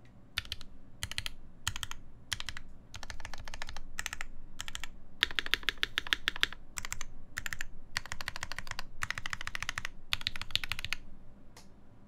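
Typing on a Mesa TKL mechanical keyboard with lubed JWK Giant v4 switches, a stainless steel plate and GMK keycaps: bursts of rapid keystrokes with short pauses between them, then one lone keystroke near the end.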